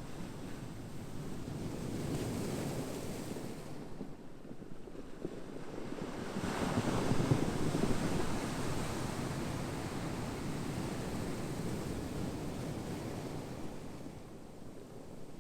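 Ocean surf: waves washing in as a steady rush, one swell building to its loudest about seven seconds in, then easing off toward the end.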